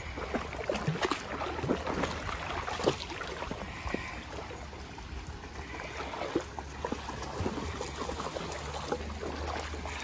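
Water splashing and sloshing as feet and dog paws wade through a shallow, slow-flowing creek, with irregular small splashes over the low run of the stream.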